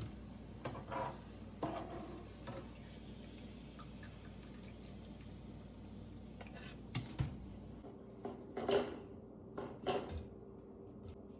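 Metal kitchen utensils clinking and knocking against a pot and dishes, a dozen or so scattered strikes. A steady faint hiss underneath cuts off suddenly about eight seconds in.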